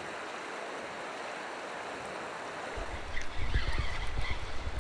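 Steady rush of a shallow river flowing. About three seconds in, a low rumble of wind buffeting the microphone joins in.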